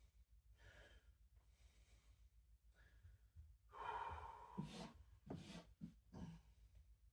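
Faint, heavy breathing of a person resting after exercise, breath after breath. Near the middle comes one louder exhale, followed by a few short sounds.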